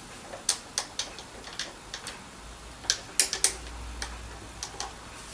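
Scattered light clicks and taps from parts of a 1967 Hoover Senior 652A upright vacuum cleaner being handled, irregular, with a quick cluster about three seconds in.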